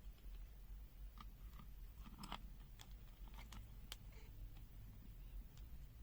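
Near silence with a few faint, scattered clicks and small handling noises, the strongest about two seconds in.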